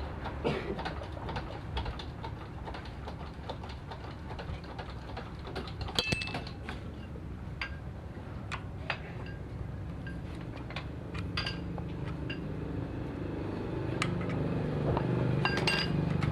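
Scattered metallic clinks and taps of tools and small metal parts being handled, a few of them ringing briefly, over a low steady rumble that grows louder near the end.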